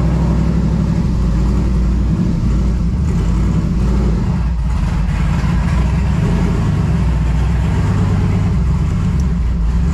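Twin-turbo LS V8 in a swapped Mustang idling steadily.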